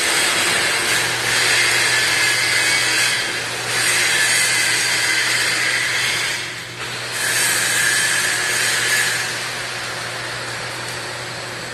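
MIG welding arc crackling in runs of a few seconds, breaking off briefly twice before starting again and going quieter near the end, over a steady low hum.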